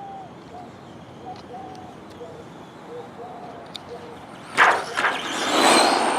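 RC truck driving fast close by: a sudden burst of noise about four and a half seconds in, then a rushing sound with a high-pitched motor whine that swells to a peak near the end.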